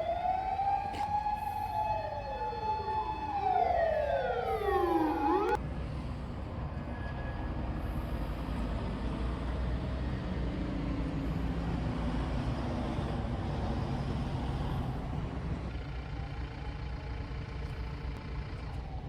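Emergency vehicle sirens wailing: several overlapping tones rising and falling. They cut off suddenly about five and a half seconds in, leaving a steady low rumbling noise.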